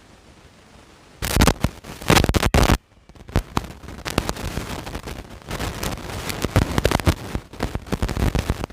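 Chopped tomato going into a pan of hot oil and sautéed onions: a loud burst of sizzling and spattering about a second in, then steady crackling frying.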